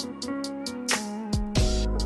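Background music with a beat. The deep bass drops out and comes back in near the end.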